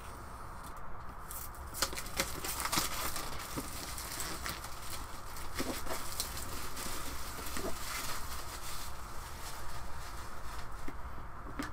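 A large cardboard box of tabletop terrain being handled and opened: irregular rustling and crackling of packaging with light knocks, thickening about two seconds in.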